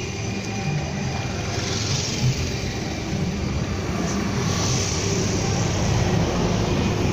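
A motor vehicle engine running steadily with a low rumble, and street noise around it; a hiss swells briefly about two seconds in and again around five seconds in.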